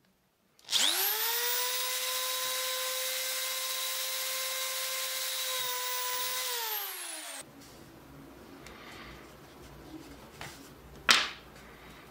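Electric drill spinning up with a rising whine, running at a steady pitch while drilling through a plastic pipe clip into a plastic pipe, then winding down with a falling whine and stopping. A single sharp click near the end.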